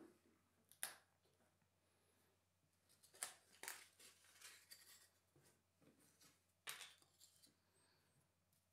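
Faint, scattered light clicks and rustles of thin laser-cut balsa parts being picked up, tapped down and slotted together on a wooden board. They come about a second in, in a cluster between three and five seconds in, and once more near seven seconds.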